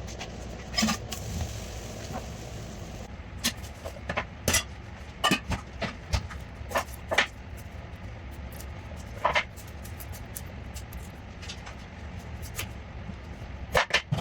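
Sharp clicks and knocks at irregular intervals, in small clusters, over a steady low rumble.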